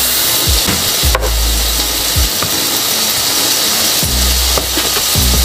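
Steady sizzling hiss of hot cooking, with a metal utensil scraping and stirring instant noodles in a wide pan of boiling water. A sharp click comes about a second in.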